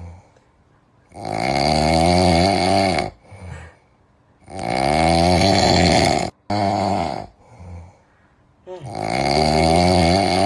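A cat snoring, three long, loud snores about three to four seconds apart, each lasting about two seconds, with short, softer breaths between them.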